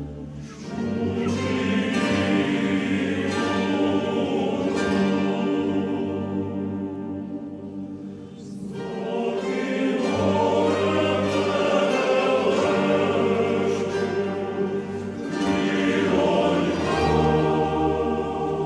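Choral music: a choir singing slow, sustained phrases, swelling up three times, about a second, nine seconds and fifteen seconds in.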